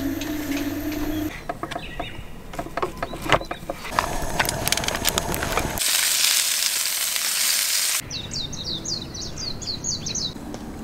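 Hamburger patties sizzling in a frying pan for about two seconds, with scattered clicks and knocks before it, then a bird singing a quick run of high chirps. The frying cuts in and cuts off suddenly, and a steady hum is heard briefly at the start.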